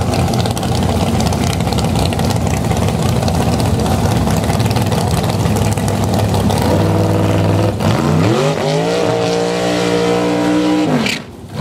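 Dragster engine running rough and loud at first. From about seven seconds in it revs up and is held at high revs while the rear tyres spin in a burnout, then drops off sharply near the end.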